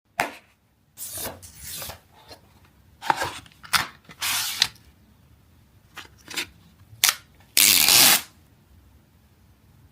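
Cardboard and plastic phone packaging being handled and opened: a sharp click, then a series of rubbing and sliding scrapes and clicks, the longest and loudest about half a second near the end.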